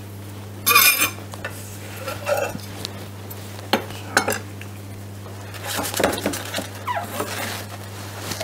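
A chef's knife scraping and clinking against a stainless steel hotel pan as diced onion is pushed off the blade, followed by scattered metal clinks and scrapes as the pan is handled on a wooden board, over a steady low hum.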